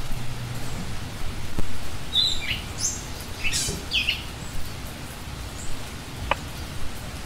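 Knife chopping green herbs on a wooden cutting board in a run of short knocks, with birds chirping a few short falling calls in the middle.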